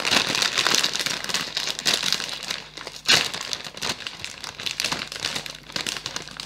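A plastic potato-chip bag crinkling and crackling as gloved hands grip it and pull it open. The bag tears open with a sharper, louder rip about three seconds in, then keeps crinkling as it is spread wide.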